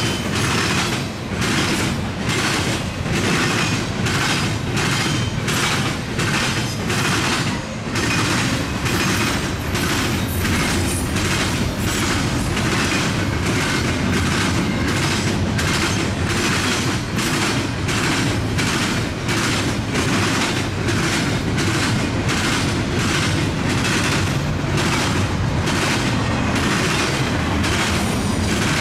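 Double-stack intermodal well cars of a freight train rolling past at speed, a continuous rumble of steel wheels on rail. The wheels clack in a quick, regular rhythm, about twice a second, as they pass over the diamond crossing.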